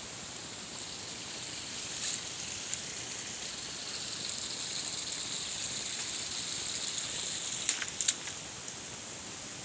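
Steady rush of flowing water that swells a little midway, with a few sharp clicks near the end.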